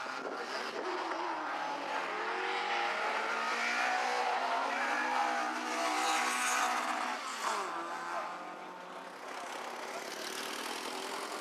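Rally car engine revving hard under load on a sprint stage, its pitch rising and falling with gear changes, and the revs and loudness dropping sharply about seven and a half seconds in as the driver lifts off or shifts down.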